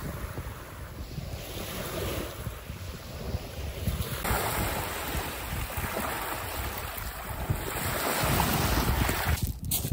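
Sea waves washing onto a beach, swelling louder about four seconds in and again near the end, with wind buffeting the microphone.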